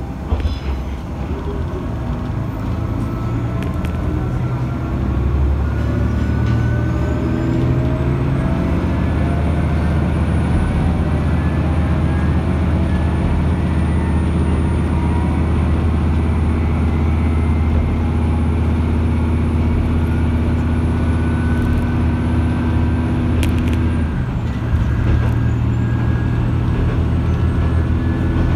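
Matsuura Railway MR-600 series diesel railcar running, heard from inside the car: the engine and running noise grow louder with a whine rising in pitch as it gathers speed, then hold steady until the engine note changes abruptly about three-quarters of the way through.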